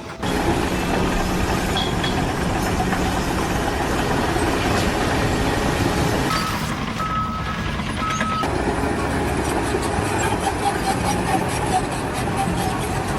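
Heavy vehicle engine running steadily. About seven seconds in, the noise dips briefly and a few short high beeps sound.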